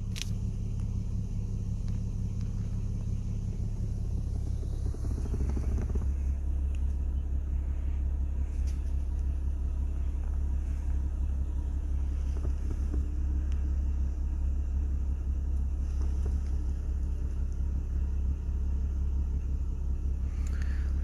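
Jeep Wrangler JK's V6 engine idling, a steady low rumble heard inside the cabin; the drone settles slightly lower in pitch about five seconds in.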